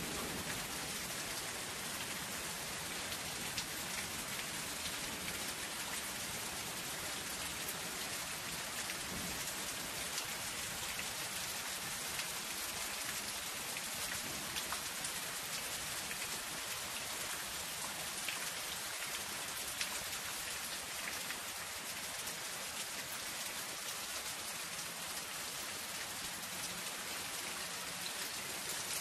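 Light rain falling steadily on zinc sheeting, an even hiss with scattered ticks of single drops.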